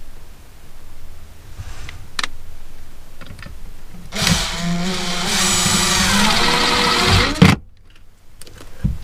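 Makita cordless drill-driver running to drive a screw into the mounting bracket, its motor whine rising and falling in pitch for about three seconds before it cuts off suddenly. A few light clicks of handling come before it.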